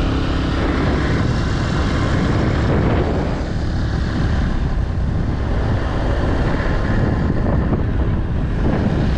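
Moped engine running at a steady cruise, with wind buffeting the microphone.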